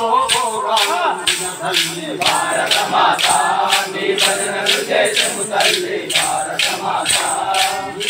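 Men singing a devotional bhajan in chorus, keeping time with chiruthalu, wooden hand clappers fitted with small metal jingles, struck in a steady beat of about three to four strokes a second.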